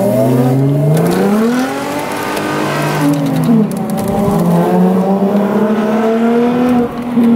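Car engine accelerating hard, heard from inside the cabin. Its pitch climbs, drops at a gearshift just after the start, climbs again for a couple of seconds, then holds steadier.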